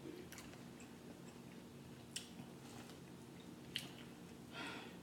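Fingers picking through buttery crab legs and shrimp: faint wet squishing with a few sharp clicks of shell, over a faint steady hum.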